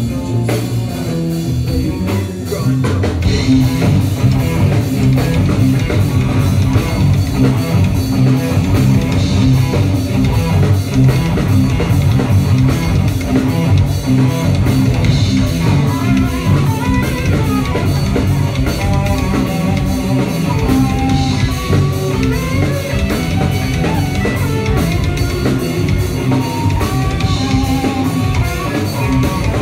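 Live rock band playing an instrumental passage: electric guitars and bass over a full drum kit, louder from about three seconds in, with a melody that rises and falls through the second half.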